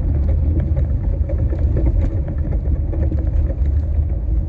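Steady low rumble of a front-wheel-drive car driving on a snowy road, heard from inside the cabin, with faint scattered ticks.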